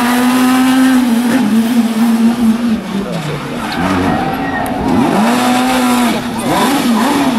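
Fiat Grande Punto Abarth rally car's engine at high revs. The revs fall about three seconds in as it brakes into a tight bend, climb again as it accelerates out, and dip and rise once more near the end.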